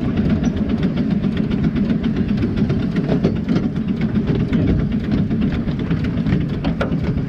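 A 7¼-inch gauge miniature steam locomotive running along the track, heard from its cab: a steady rumble of wheels on rail with many small clicks and rattles.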